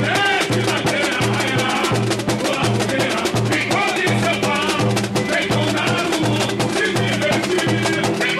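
Samba-enredo performed live: a lead singer singing through a microphone and PA over a samba school drum section, with a steady low bass-drum beat and fast shakers and small drums rattling on top.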